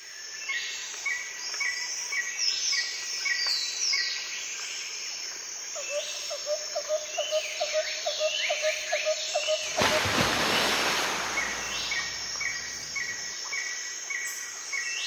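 Several birds calling: a short chirp repeated about twice a second, quick whistled notes, and a fast low trill for a few seconds. About ten seconds in, a rustling noise rises over them for about three seconds.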